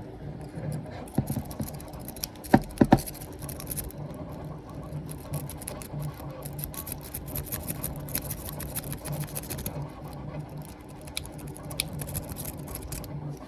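Rake pick being worked rapidly in and out of a 70 mm Ace Tool pin-tumbler padlock: a dense run of fine scratching and light clicking as it sweeps the pins, with a few sharper clicks between two and three seconds in. The lock does not open on this attempt.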